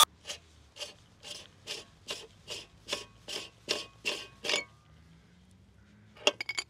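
About eleven short, even rasping strokes, roughly two and a half a second, made by hand, followed near the end by a quick cluster of sharp clicks.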